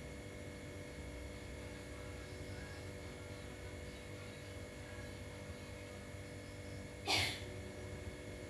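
Steady electrical hum with a low rumble, interrupted about seven seconds in by one short, sharp hissing burst of unknown origin.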